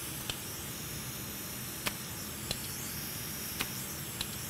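Vacuum desoldering gun running with a steady hiss, sucking solder out of a graphics card's connector through-holes, with a few faint clicks.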